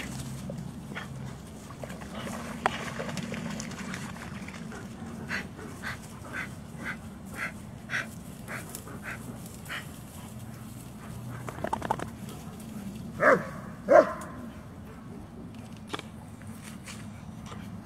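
Dogs at play, with a run of light, even ticks about two a second midway and then two loud barks in quick succession near the end.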